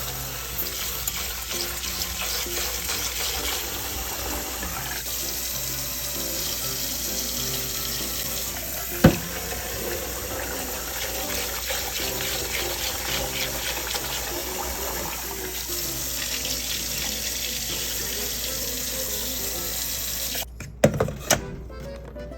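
Water running steadily, under background music with a simple stepping melody. One sharp knock about nine seconds in.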